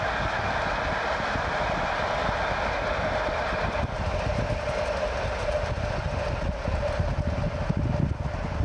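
A string of diesel locomotives running light at high speed, heard from a car pacing alongside, with heavy wind and road rumble mixed in and a steady whine.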